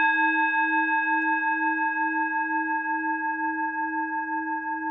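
A single struck metal chime rings out and slowly fades, its low tone pulsing gently with a slow beat.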